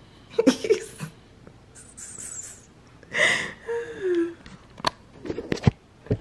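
Breathy vocal sounds from a drowsy, just-woken person: short breaths, a loud breathy puff about three seconds in, then a short falling moan, with a few sharp clicks of handling near the end.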